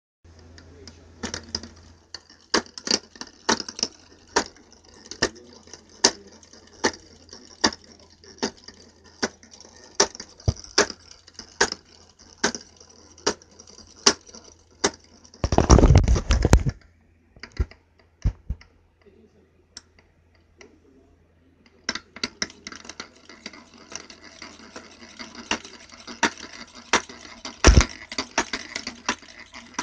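Repeated metallic clanks, about one or two a second, from a motorized bicycle's engine as it is turned over by hand with its cylinder off: the clank the owner is trying to trace. About halfway through comes a louder rough scraping rattle lasting about a second, and after a short pause the clanks start again.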